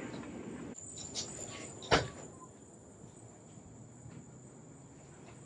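Small handling knocks and one sharp click about two seconds in as screws are run into the side of a plastic LED taillight housing, then a steady high chirring of crickets in the background.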